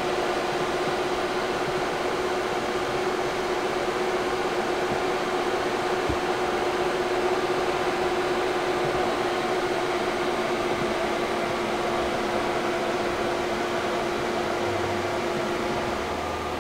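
A steady mechanical whir with a constant low hum running under it, like a fan motor.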